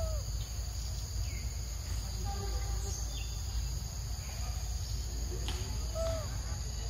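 Insects droning steadily in a high, even chorus over a low rumble, with a couple of brief, falling bird-like calls about a second in and again near the end.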